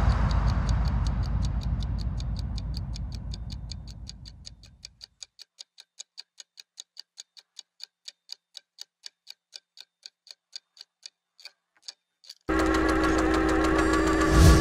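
A clock-like ticking, about four ticks a second, that thins out and stops near the twelve-second mark. It begins under a deep rumble that dies away over the first five seconds, and near the end a loud steady mechanical drone with a held hum cuts in suddenly.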